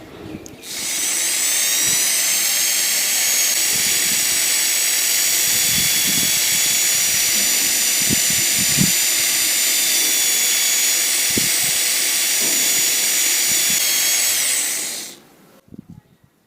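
Electric drill converted from 220 V to run on 12 V, its motor spinning up with a rising whine, running steadily at high speed for about fourteen seconds, then winding down and stopping.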